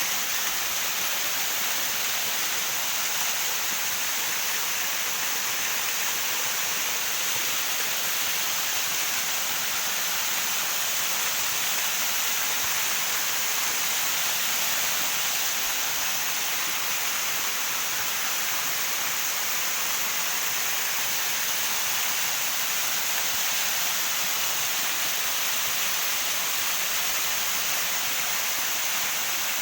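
Waterfall: a steady, even rush of falling water with a bright hiss and no breaks.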